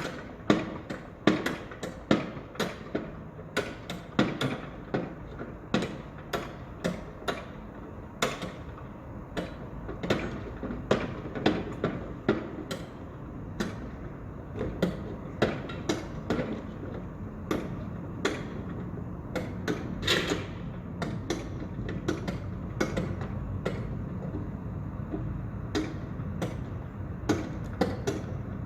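Construction site: repeated sharp knocks and clanks, about one to two a second at first and sparser later, over a steady machine hum that grows stronger in the second half.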